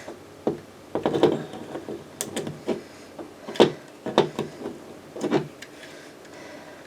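Plastic Lego bricks clicking and knocking as they are handled and pressed together, in irregular short taps and clicks.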